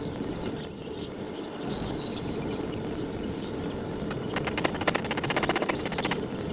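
Steady low noise of the furnace's burners running. A rapid rattle of clicks comes in about four seconds in and lasts nearly two seconds.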